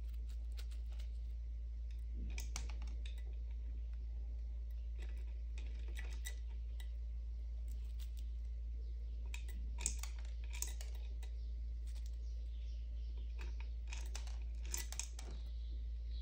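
Whole dried cloves clicking and rattling as they are dropped one by one into a small plastic bottle and shuffled in the palm: irregular light ticks in small clusters, over a steady low hum.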